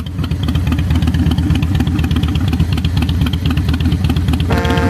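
A motor engine running steadily with a fast, even low pulse, and a horn sounding once briefly near the end.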